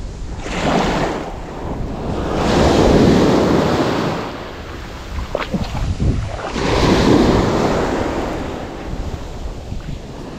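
Small sea waves breaking and washing up over a stony shore, the surge swelling and fading three times, with wind rumbling on the microphone.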